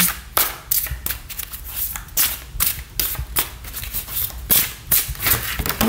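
A tarot deck shuffled by hand: a quick, irregular run of card slaps, about four a second.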